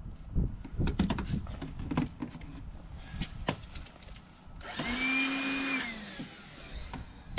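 Clicks and knocks of power drills being handled and set down. About five seconds in, a Makita corded electric drill is run briefly, with a steady motor whine for about a second and a half that winds down as the trigger is let go.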